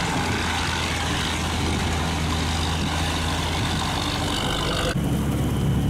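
A barge's engine running steadily with a low hum, under a steady rushing noise. About five seconds in the sound changes abruptly: the rushing drops away and a different engine hum takes over.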